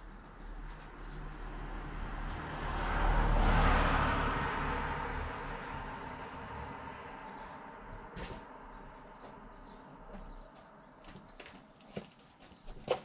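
A vehicle passing by, swelling to its loudest about three to four seconds in and slowly fading, while small birds chirp repeatedly. A few light knocks near the end.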